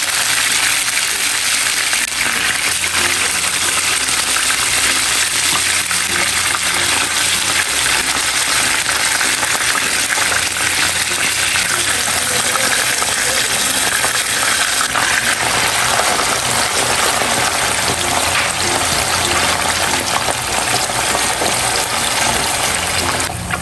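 Marinated pork belly slices frying in hot oil in a pan: a steady, loud sizzle with many small pops and spits.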